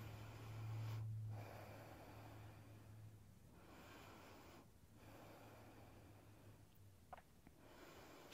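Near silence: faint, slow breathing close to the microphone, several breaths in a row, over a low steady hum that fades out after the first few seconds.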